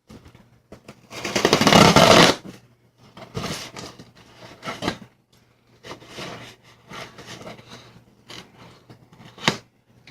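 A cardboard shipping box being opened, with its packing tape cut and the flaps handled in a run of scraping and rustling. The loudest is a scrape of about a second, starting about a second in, followed by shorter scrapes and clicks.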